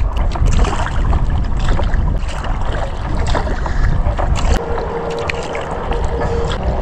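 Kayak paddling: paddle blades dipping and splashing water, with many small splashes and drips, over a steady low rumble.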